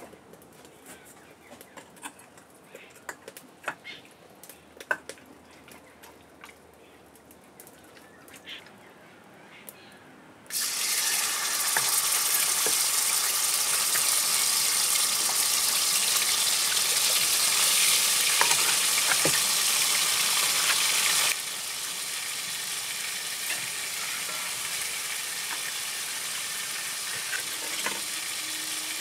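Faint scattered clicks, then a sudden loud sizzle about a third of the way in as marinated chicken fries in a hot iron kadai. About two-thirds of the way in it drops to a quieter, steady sizzle while the chicken is stirred.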